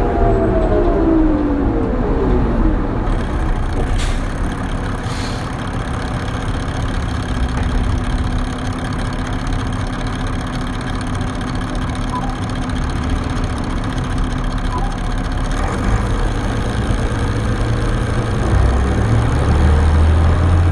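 Detroit Diesel Series 40 diesel engine of a 2001 New Flyer D40LF transit bus running at low revs, with a falling whine dying away in the first couple of seconds and a steady hum under the rumble. Two short clicks come about 4 and 5 seconds in. Near the end the engine note rises and grows louder as it takes load.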